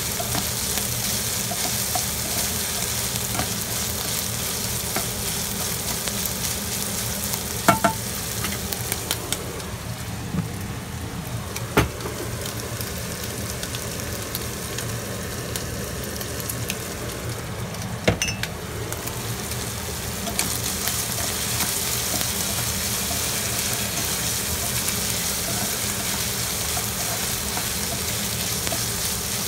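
Minced pork sizzling as it fries in a pan and is stirred, with a few sharp knocks of the spatula against the pan. The sizzle dies down for a while in the middle, then comes back up.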